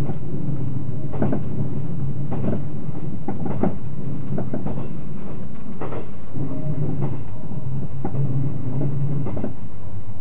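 Running noise inside a JR 381-series tilting limited-express car at speed: a steady low rumble and hum of the wheels on the track, with irregular clacks and knocks roughly every second or two.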